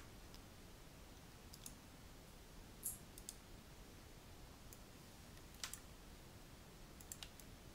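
About ten faint, scattered clicks of a computer mouse and keyboard, some in quick pairs, over a low room hum.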